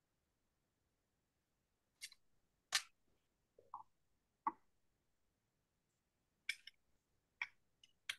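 Several short, sharp clicks and pops at irregular intervals, starting about two seconds in after a silent stretch.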